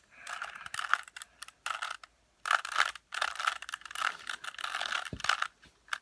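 Rubik's Cube being twisted by hand: rapid plastic clicking and clacking of the layers turning, in runs with short pauses between them.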